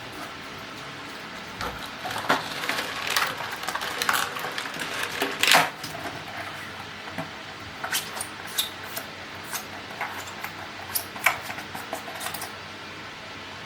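Scattered light clicks, taps and clatters of household objects being handled, such as dishes or utensils, over a steady hiss.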